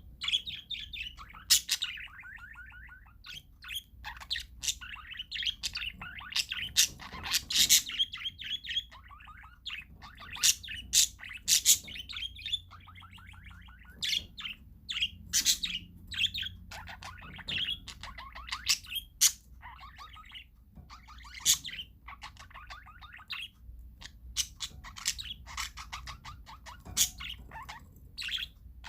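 Parakeets chattering: rapid trills of quickly repeated notes mixed with many short, sharp chirps and squawks, with several birds calling over one another throughout.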